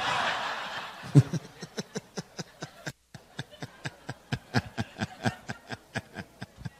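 Laughter after a joke: a wash of audience laughter fades out in the first second, then a man chuckles in many short, breathy bursts of about three to five a second.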